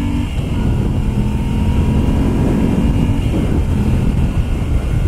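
Moto Guzzi V7 III Stone's 744 cc air-cooled transverse V-twin pulling hard under wide-open acceleration at highway speed, with wind noise over it. The engine note changes twice, near the start and about three seconds in.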